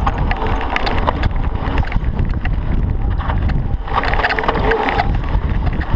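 Wind buffeting the microphone of a chest-mounted action camera as a mountain bike descends a dry gravel and dirt trail at speed, with tyres crunching over loose stones and the bike rattling. A louder, harsher scraping burst comes about four seconds in.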